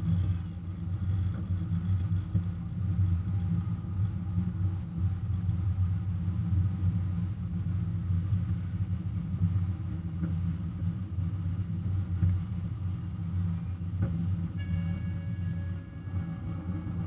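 Engine of a miniature ride-on train's diesel-style locomotive running steadily as the train rolls along, a low continuous rumble. Near the end, a steady high-pitched squeal joins in.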